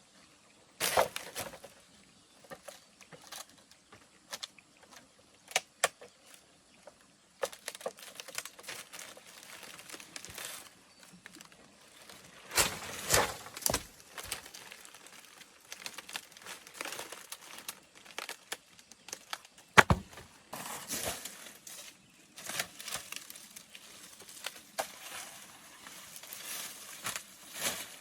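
Dry palm leaves rustling and crackling as they are handled, with irregular sharp knocks; the loudest knock comes about twenty seconds in.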